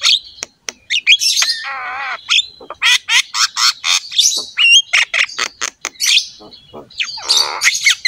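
Javan myna (jalak kebo) singing a busy, varied song: quick chattering notes and short gliding whistles mixed with harsh squawks, and a longer grating, rasping call about two seconds in and again near the end.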